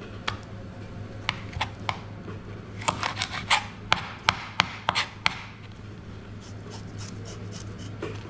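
Kitchen knife tapping and scraping on a plastic cutting board as a mackerel is cleaned: a run of sharp clicks, thickest from about three to five seconds in and fainter near the end.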